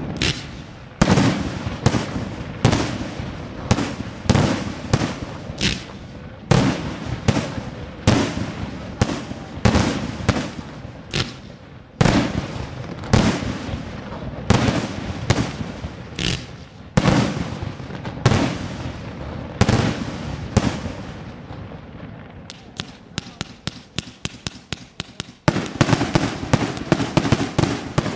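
Daytime fireworks batteries firing smoke shells: a long, steady string of sharp bangs, roughly one or two a second. About three-quarters of the way through they give way to a fast run of quicker, quieter reports, then loud, dense bangs resume near the end.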